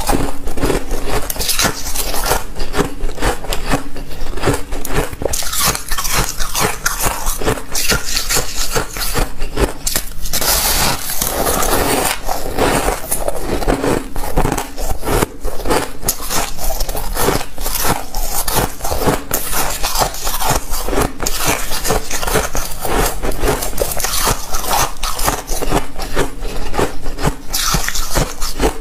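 Close-miked crunching of frosty ice chunks being bitten and chewed: a dense, continuous run of crisp crackles and scrapes.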